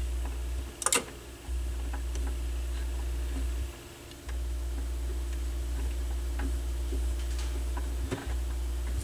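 Mains hum from the Dual CS 530 turntable's signal through the amplifier, cutting out and back in several times with a loud click about a second in and small ticks. The owner puts the intermittent hum down to a dirty connection at the headshell.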